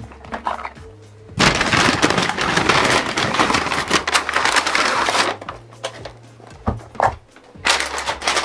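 A paper takeaway bag rustling and crinkling loudly as it is handled and tipped to empty it, with a few shorter rustles and taps of packaging being set down near the end. Quiet background music plays underneath.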